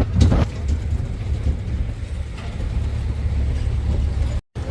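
Steady low rumble of a moving passenger train, heard from a seat on board, with a short knock or jolt about a quarter second in. The sound drops out abruptly for a moment near the end.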